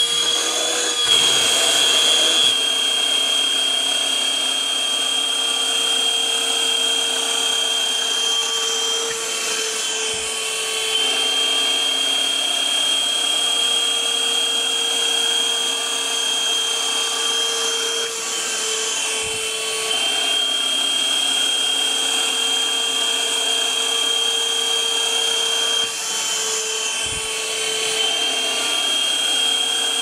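NOVETE cordless handheld wet-and-dry vacuum cleaner with a 100 W motor, running as it is worked over carpet and curtains: a steady high whine over rushing air, dipping slightly in level a few times.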